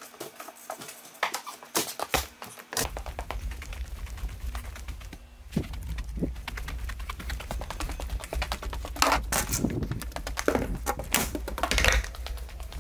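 Irregular clicks and knocks from a hand-held camera being carried on foot, footsteps and handling mixed together. A steady low rumble of handling noise joins in about three seconds in.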